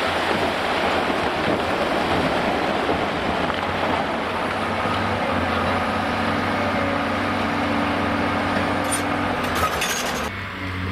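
A steady rushing noise over the low, steady hum of the Cat 390D demolition excavator's diesel engine running, with the engine hum clearer from about halfway. A few sharp clicks come near the end.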